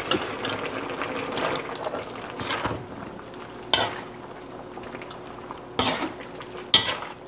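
Spatula stirring a wet, chunky stew in a metal pan: scraping and sloshing through the simmering sauce, with a few sharper clinks against the pan in the second half.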